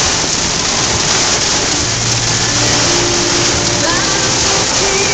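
Torrential rain hitting a car's roof and windscreen, heard from inside the moving car as a loud, steady, dense hiss.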